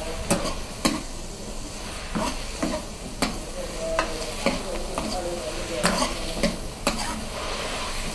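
Squid and spinach stir-fry sizzling in a wok on full heat, with a metal ladle scraping and clacking against the wok at irregular intervals, about every second.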